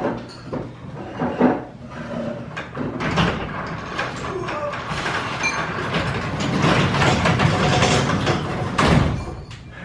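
Broken garage door being forced by hand, with a few knocks early on, then a rattling, rumbling scrape that grows louder for several seconds and drops away just before the end.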